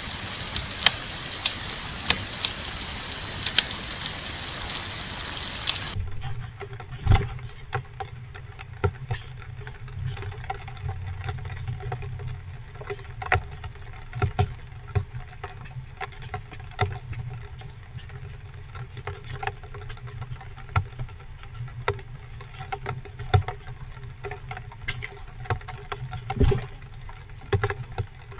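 Steady rain for the first six seconds. Then, from inside a wooden nest box, irregular scratches and taps and a few sharper knocks as a squirrel shifts about in the wood shavings against the box walls, over a low steady hum.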